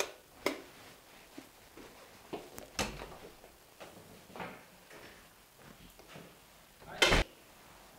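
A few soft knocks and steps, then a door shutting with a thud about seven seconds in.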